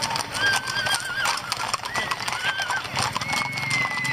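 Horses' hooves clip-clopping steadily as mounted riders pass. Several high, wavering calls are heard over the hoofbeats, one longer and steadier near the end.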